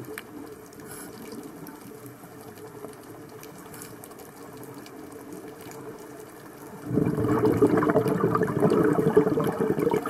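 Underwater sound picked up by a camera inside a sealed dive housing: a steady muffled water wash, then a much louder bubbling rush about seven seconds in, like a scuba diver's exhaled regulator bubbles.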